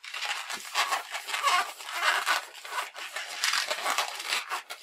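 An inflated 260 latex modelling balloon rubbing against fingers and a ruler as it is handled and bubbles are measured off for twisting: an irregular rustling and rubbing.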